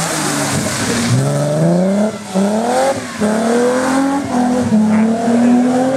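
Hillclimb race car's engine at high revs, accelerating hard: the engine note climbs, drops briefly at each quick upshift about once a second, then climbs again.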